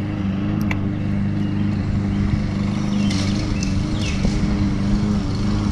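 Boat motor running at a steady, even hum, with a few light clicks over it.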